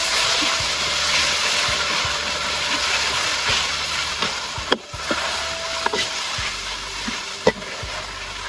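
Food sizzling in a hot pan: a steady hiss with a few sharp pops, the loudest near the end.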